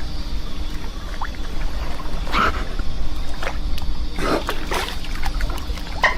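Water sounds over a steady low rumble, with a few short splashy noises, about 2.5, 4.3 and 5 seconds in.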